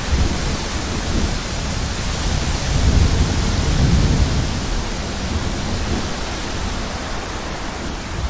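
Thunderstorm: a steady hiss of heavy rain under a deep, rolling thunder rumble that swells about three seconds in and then slowly fades.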